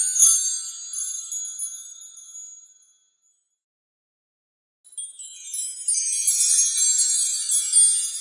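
Wind chimes tinkling, many high ringing tones struck over one another, dying away about three seconds in, then starting again after about two seconds of silence. A single click just after the start.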